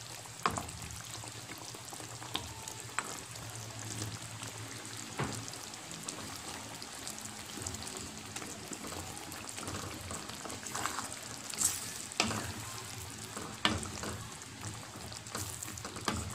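A wooden spatula stirring okra and long beans into a simmering coconut-milk stew in a metal wok: a steady bubbling hiss with scattered short scrapes and knocks of the spatula against the pan.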